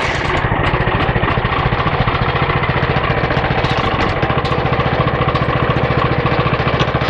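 A 14 hp 420cc single-cylinder engine running steadily with a fast, even firing beat while driving the sawmill's bandsaw blade wheels.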